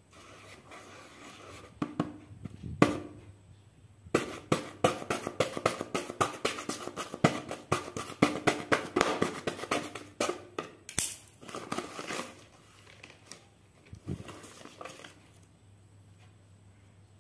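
A knife blade scratching and cutting through a paper sheet: two single strokes, then a long run of quick rasping strokes, then a few paper crinkles near the end.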